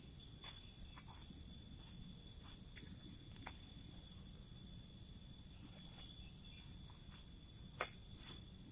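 Forest insects, crickets or cicadas, droning steadily at several high pitches, with a handful of light clicks and crackles scattered through it, the loudest two close together near the end.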